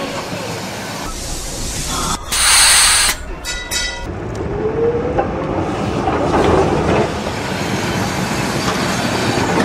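Electric tram running on its rails, with a short loud burst of air hiss about two seconds in, a few clicks after it, and a motor whine that rises in pitch.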